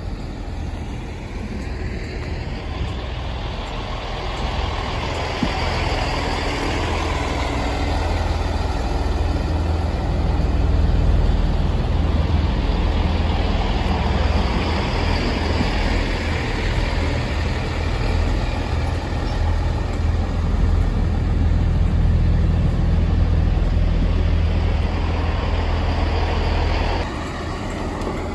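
Class 165 Networker Turbo diesel multiple unit at a platform, its underfloor Perkins diesel engines running with a steady low drone. The drone drops away sharply about a second before the end.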